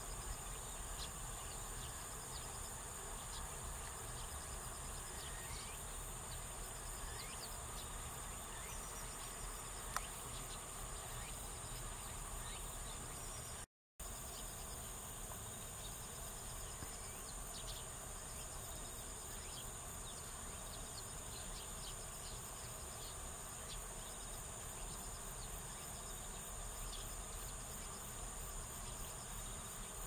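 Steady high-pitched chorus of singing insects, with scattered faint short chirps from a flock of Eurasian tree sparrows and a single sharp tick about ten seconds in. The sound cuts out for a moment about 14 seconds in.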